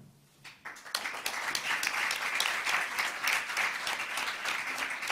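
Audience applauding in a lecture hall, a dense clatter of many hands clapping that starts about a second in.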